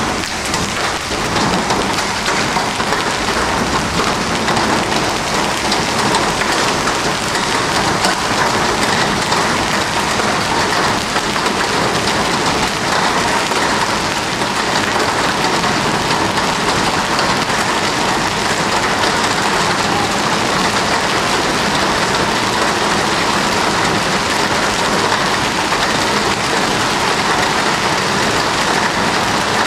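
Large hailstones mixed with rain pelting a paved road: a steady, dense clatter and hiss of countless impacts.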